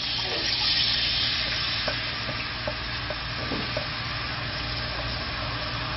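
Soy-based stir-fry sauce poured into hot oil with browning garlic, ginger and green onion in a skillet, sizzling hardest in the first second or so as it hits the oil, then settling to a steady sizzle.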